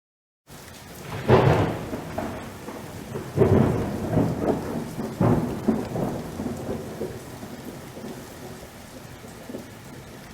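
Thunderstorm: steady rain with three loud cracks of thunder in the first half, each rolling off into rumble, then rain continuing on its own.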